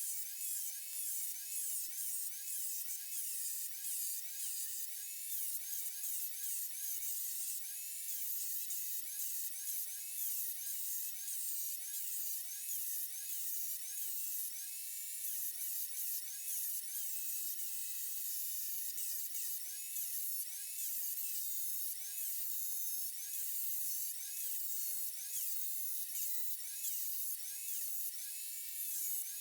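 High-speed rotary tool whining, its pitch dipping and recovering about once or twice a second as it is pressed against the work and eased off.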